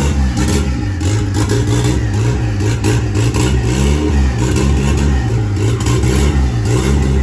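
Turbocharged Chevrolet Corsa pickup engine running under way, its pitch rising and falling over and over as the throttle is worked.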